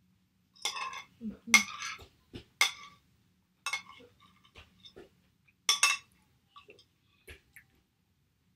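Metal spoon scraping and clinking against a ceramic bowl as food is scooped, in about five short, sharp strokes with fainter ticks between.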